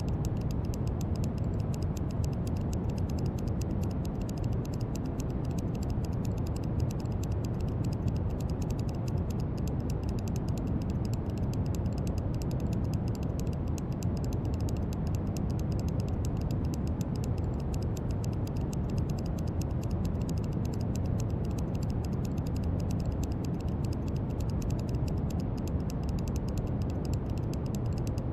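Brown noise: a steady, deep rushing hiss, heaviest in the bass and thinning toward the treble, with a fine grainy crackle on top.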